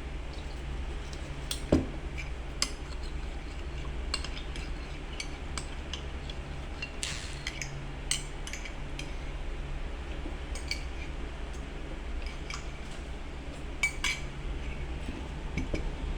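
Cutlery clinking against dishes while eating, in scattered light clicks and taps, a sharper clink about two seconds in and a couple more near the end.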